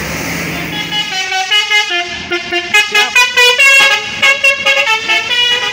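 A tour bus's multi-tone musical 'telolet' horn playing a quick tune of short stepped notes. It starts about a second in, after a brief stretch of engine noise, and is loudest in the middle.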